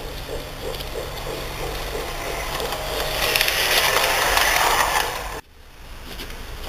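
LGB garden-scale model electric railcar running on outdoor track: a rhythmic clatter of wheels and motor that grows louder as it passes close by, peaking about three to five seconds in. It cuts off abruptly a little after five seconds, and a quieter clatter of model train running follows.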